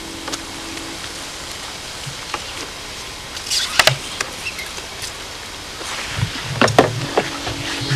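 Water spraying from a garden hose nozzle into a plastic watering can, a steady hiss, with a few sharp plastic knocks and clatters about halfway through and again near the end.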